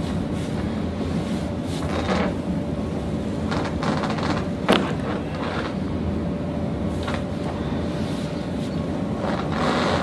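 Steady low background hum with a few soft handling sounds, and one sharp click about halfway through.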